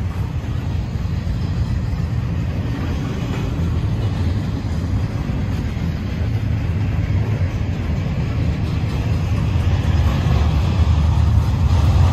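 Freight train's intermodal well cars loaded with containers rolling past: a steady low rumble of steel wheels on rail, growing louder near the end.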